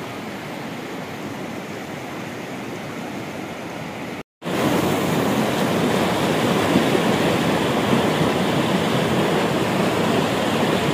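Swollen mountain river rushing over stones: a steady rush of water. About four seconds in the sound drops out for a moment and returns louder and closer, the current churning around a person's legs as he stands in it.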